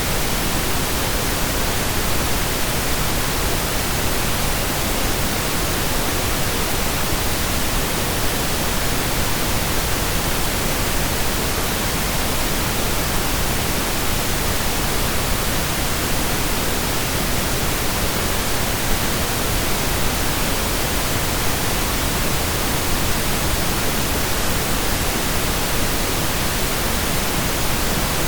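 Steady synthesized pink noise: an even, unchanging hiss with equal energy per octave, without pitch or rhythm.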